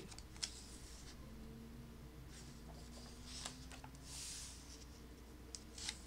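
Thin paper pages of a coloring book being turned by hand: quiet rustling with a few light clicks and a soft swish of paper about four seconds in.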